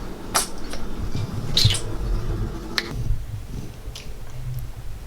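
Kitchen handling noises: a few sharp clicks and a short rasp, about one a second, with a low rumble beneath.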